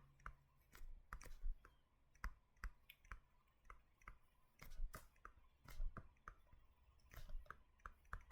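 Handwriting on a writing surface: faint, irregular light clicks and taps of the writing tip, about three or four a second.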